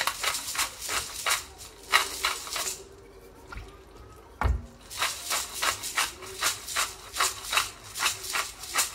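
Disposable peppercorn grinder bottle being twisted back and forth, its grinder cracking whole black peppercorns in a quick series of rattling clicks, about three or four a second. The clicks pause for about two seconds in the middle, where there is a single dull knock, then go on.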